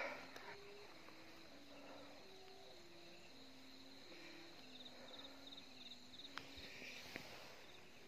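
Faint night chorus of crickets with a steady high trill that pulses briefly about five seconds in. Under it runs a faint series of low held notes, each about half a second, stepping up and down in pitch.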